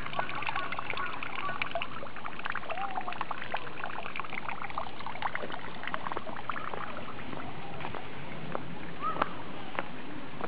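Water trickling and splashing steadily, with many small drips and splashes.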